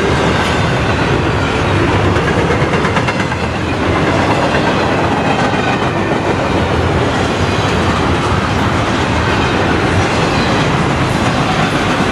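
Intermodal freight train of double-stack container well cars rolling past: a steady rumble of steel wheels on rail with a repeated clickety-clack of wheels crossing rail joints.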